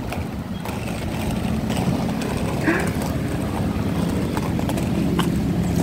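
Roller skate wheels rolling over pavement: a steady low rumble with a few faint clicks.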